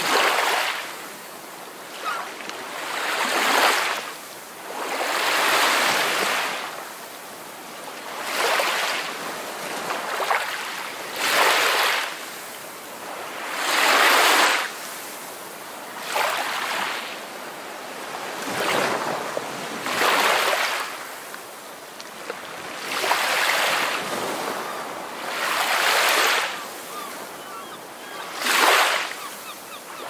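Ocean surf washing in and out over rocks, a rushing hiss that swells and fades about every two to three seconds.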